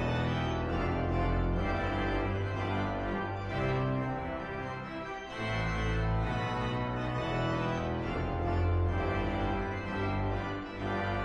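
Organ music: sustained chords held and changing every second or two, with a short dip about five seconds in.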